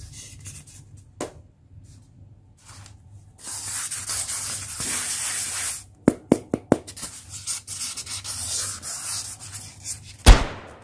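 Fingers rubbing and scraping a block of polystyrene foam: a dry rasping in long stretches, with a few sharp clicks between them. A single heavy thump near the end.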